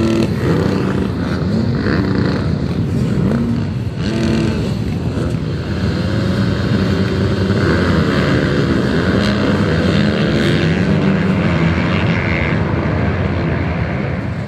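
Many off-road motorcycle engines running at once, idling and revving, their overlapping pitches rising and falling.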